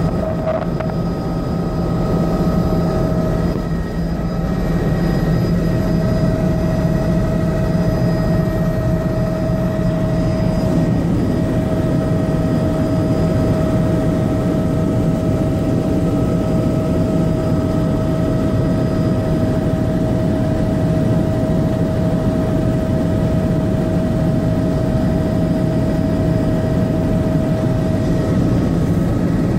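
Helicopter cabin noise in level flight: the steady drone of the engine and rotors, with a steady high whine over it.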